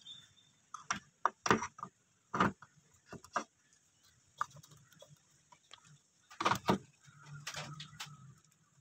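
Irregular metallic clicks and knocks as a Vespa scooter's rear clutch pulley and toothed drive belt are handled and fitted onto the transmission shaft by hand.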